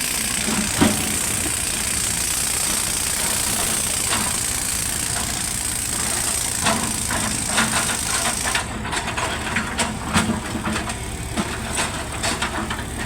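Sany 140 excavator's diesel engine running steadily, with repeated knocks and rattles from loading work that come more often from about halfway through.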